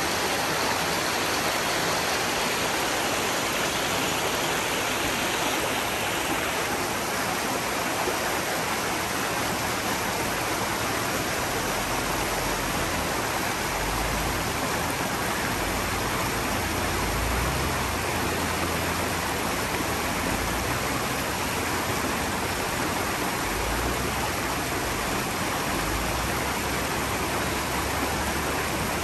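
Fast shallow stream rushing over rocks, a steady loud wash of water. A low, uneven rumble joins it from about halfway through.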